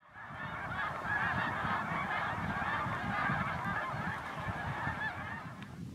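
A large flock of snow geese calling all at once, a dense, continuous din of overlapping honks from many birds in flight. It fades in at the start and drops away just before the end.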